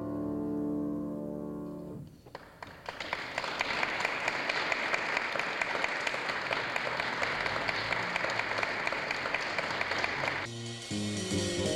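A grand piano's final chord rings and fades over the first two seconds, then an audience applauds for about eight seconds. Near the end the applause cuts off and music starts abruptly.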